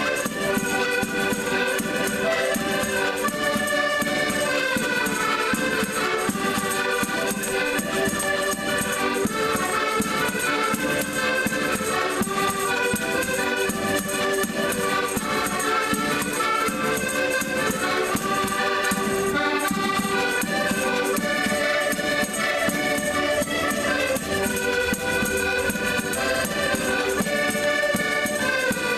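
An ensemble of Portuguese concertinas (diatonic button accordions) playing a traditional tune together, with a bass drum keeping the beat.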